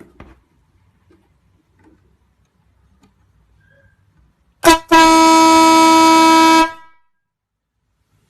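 Single-trumpet 12 V electric air horn, fed by its own air compressor, sounding a loud steady blast of about two seconds, a little over halfway in, preceded by a very short blip.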